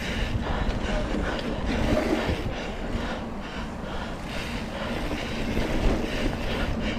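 Surly Krampus single-speed mountain bike rolling over rough ground: a steady rumble of tyres with irregular clattering and rattling from the bike.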